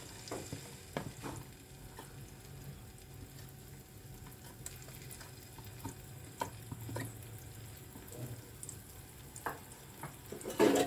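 Ground chana dal paste frying in oil in a non-stick frying pan, with a low sizzle and scattered clicks of a spoon scraping paste into the pan. There is a louder knock near the end.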